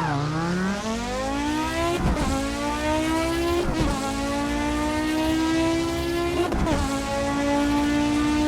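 Audi Sport quattro S1's turbocharged five-cylinder engine under hard acceleration: it pulls up from low revs, rising in pitch, with three quick gear changes that break the sound about two to three seconds apart.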